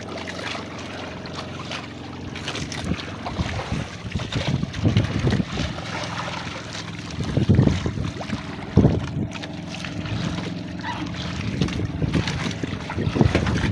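Wind buffeting the microphone over water slapping and splashing beside a small wooden outrigger boat, as a squid on a hand line is hauled in and lifted aboard. There are louder low gusts about seven and a half and nine seconds in.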